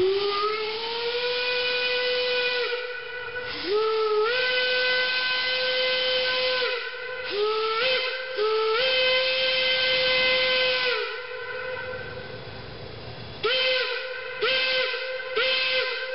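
Steam locomotive whistle blowing one steady tone in repeated blasts, each sliding up in pitch as the valve opens. Three long blasts with short stuttering ones between them, then a quick run of short toots near the end, with steam hissing in the gaps.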